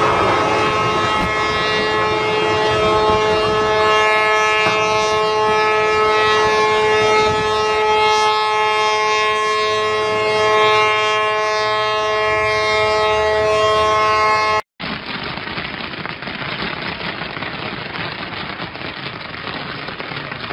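Several horns sounding together in a steady, held chord over the rushing splash of a cargo ship sliding sideways off its slipway into the water. About fifteen seconds in, it cuts off abruptly to a steady hissing, crackling rush.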